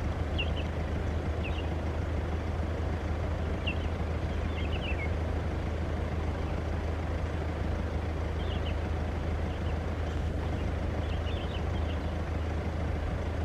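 Distant steady rumble of a Boeing 767-300ER's twin jet engines as the airliner rolls out and slows on the runway after landing. A few faint, short high chirps sound over it.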